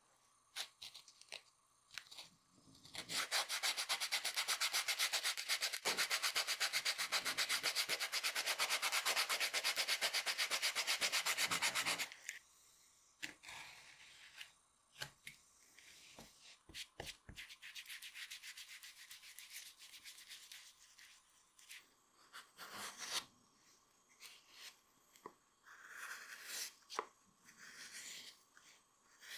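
Rapid, even back-and-forth rubbing strokes of a hand tool on the edge of a leather shoe sole, running for about nine seconds and stopping abruptly. After that come quieter, scattered scrapes and clicks of leather handwork.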